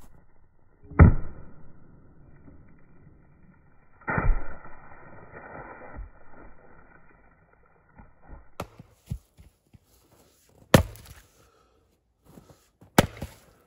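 A splitting axe strikes a firewood round on a chopping block twice, about three seconds apart. The second blow leaves a ringing tone that lasts about four seconds. Two sharp knocks follow near the end as the round comes apart.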